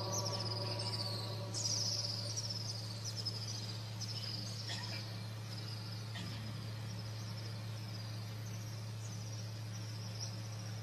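Small birds chirping with quick, high, downward chirps, thick at first and then sparser, over a steady low hum.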